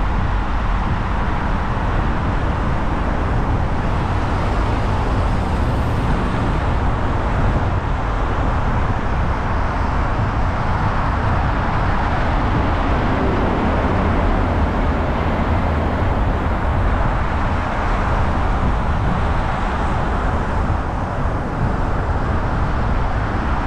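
Steady road noise of a car driving: an even hiss of tyres and wind over a low rumble, with no sudden events.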